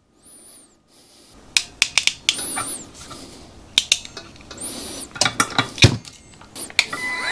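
Hand crimping tool working on small metal wire terminals: a scatter of sharp metallic clicks and clinks, in clusters about two seconds in and again around five to six seconds in.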